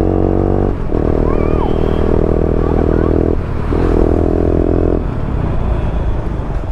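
Motorcycle engine running steadily under throttle while riding, breaking off briefly twice. About five seconds in the engine note drops away and leaves road and wind rumble.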